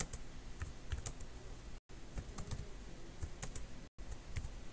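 Typing on a computer keyboard: irregular key clicks as a terminal command is entered. The audio drops out completely for an instant twice.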